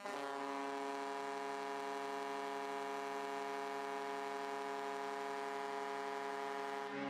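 Arena goal horn blowing one long, steady chord for about seven seconds, the signal that a goal has been scored; it stops as goal music begins.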